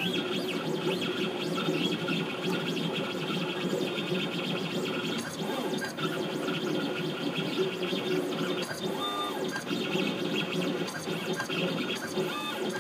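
CNC engraving machine at work: its stepper motors whine in shifting, steady tones as the cutter traces the design, with a faint scratching of the bit on the metal receiver.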